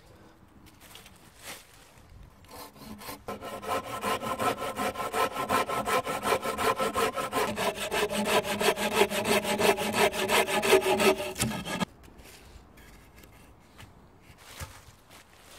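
Hand pruning saw cutting through a dry dead-wood pole in quick, regular back-and-forth strokes. It starts a few seconds in and stops abruptly near the end as the piece is cut off. The cut length is one of the pieces for a bushcraft chair.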